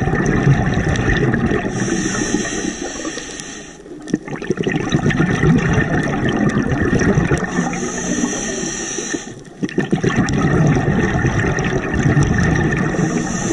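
Scuba diver breathing through a regulator underwater: long rushes of exhaled bubbles, with a higher hiss of the regulator on each breath and short pauses about every five or six seconds.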